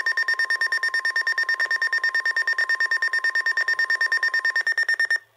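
Weather alert radio sounding a warning alarm: a loud, rapid beeping together with the steady NOAA Weather Radio warning tone, signalling an incoming flood warning broadcast. The steady tone stops a little before the end and the beeping cuts off suddenly just after.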